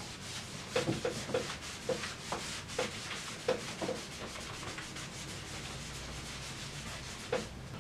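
Blackboard being wiped clean with a cloth duster: a run of short rubbing strokes, then a steadier rub in the second half.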